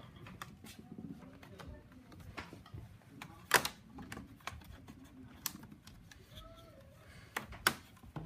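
Plastic case clips of an HP 17-s143cl laptop clicking as the case is pressed and worked into place, a scatter of sharp clicks with the loudest about three and a half seconds in.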